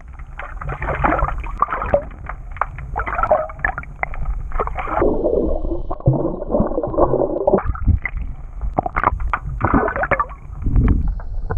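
Muffled splashing and gurgling water with irregular bubbly clicks as a hooked bass thrashes at the surface, heard through an underwater camera.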